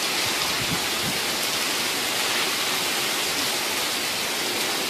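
Heavy rain pouring down steadily, a dense, even hiss with no letup.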